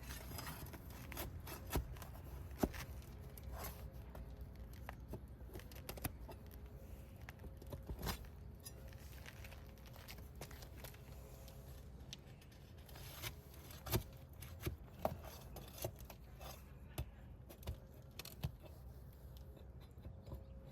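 Asphalt shingles being pried apart to unseal them: irregular scrapes and sharp clicks as the sealant strips break loose.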